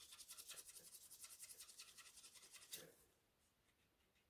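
Scratch card being scratched off by hand: faint, quick repeated scratching strokes on the card's coating, stopping about three seconds in.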